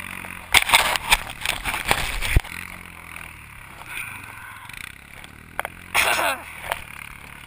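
An ATV engine idling low and steady, under loud rustling and knocking close to the camera's microphone in the first couple of seconds. A short falling pitched cry comes about six seconds in.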